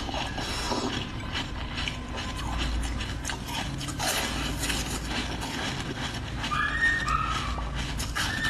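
Close-miked mouth sounds of biting into and chewing a firm jelly: many wet squelches and clicks, with a brief high whistle-like tone about seven seconds in.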